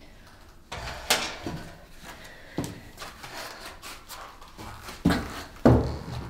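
A door being pushed and rattled: a string of knocks and bumps, the two loudest near the end.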